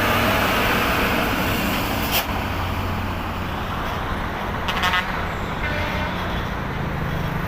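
Road traffic with a heavy truck's diesel engine running steadily, pulling up an uphill grade. There is a sharp click about two seconds in and a short horn toot near five seconds.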